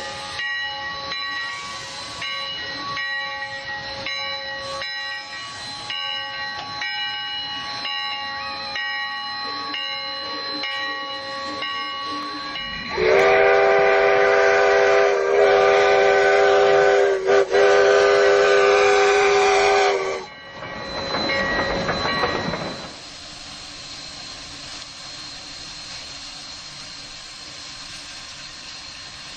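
Dubbed steam locomotive sound: the engine chuffs steadily under a set of steady tones, then a loud chime steam whistle is held for about seven seconds, broken twice, followed by a short burst of steam hiss and a quieter steady rumble.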